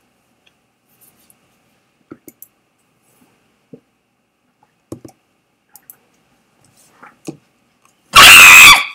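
Faint, scattered clicks of a computer mouse. About eight seconds in comes one very loud, distorted burst of noise lasting under a second.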